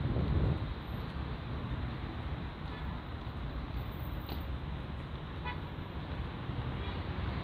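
City street traffic noise, a steady rumble of passing cars, with a brief car horn toot about five and a half seconds in.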